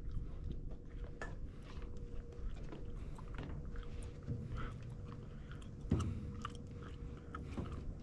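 Wind rumbling on the microphone, with many small scattered clicks and crackles.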